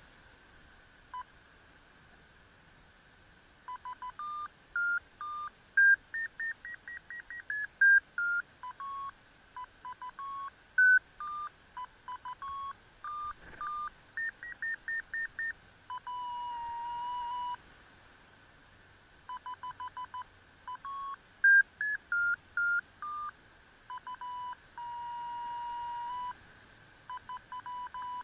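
FrSky Taranis transmitter's audio variometer: runs of short electronic beeps that step up and down in pitch, quickening and rising as the glider climbs in lift, broken twice by a steady lower tone.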